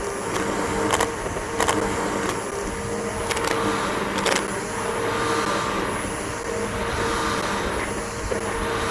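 Bissell BigGreen PowerForce upright vacuum cleaner running steadily with a high whine over its motor hum, with a few sharp clicks in the first half.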